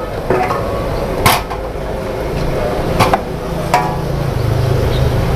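Long metal spatula clanging against a steel wok as mee goreng is stir-fried, with a few sharp strikes about a second in and again around three seconds. A steady low hum comes in under it about halfway through.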